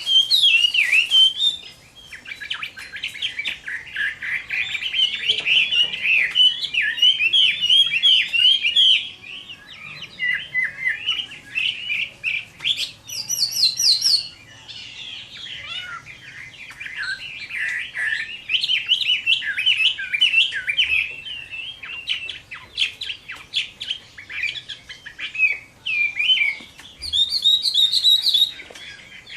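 Chinese hwamei singing a long, varied song of rapid whistled phrases. About halfway through, and again near the end, it breaks into short runs of higher, quickly repeated notes.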